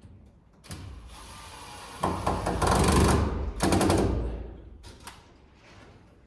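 Power driver running in two short bursts of about a second each, with a fast rattling pulse, driving screws to fix a fan's mounting bracket to the ceiling framing.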